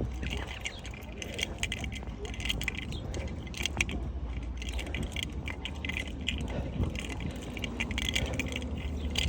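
Small metal pieces jingling and clicking in quick, irregular taps, over a steady low rumble.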